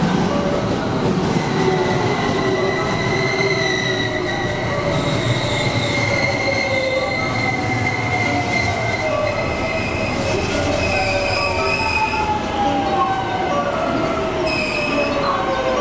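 Two electric commuter trains pulling into the station side by side and braking. A high wheel squeal is held through most of it, and motor whines fall slowly in pitch as the trains slow.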